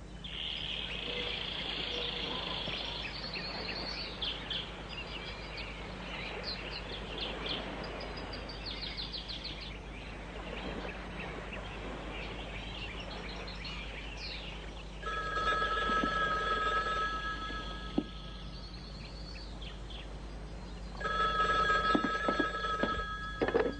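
Birds chirping, then a telephone ringing twice, each ring lasting two to three seconds: once past the middle and again near the end.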